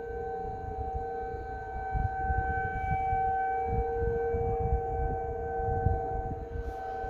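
Outdoor warning siren sounding a steady, slightly dissonant chord of tones. It swells louder about two seconds in and eases off near the end.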